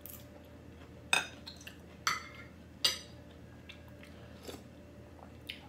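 A person eating bulalo with a fork and spoon: chewing, with three sharp clicks about a second apart in the first three seconds and fainter ones after.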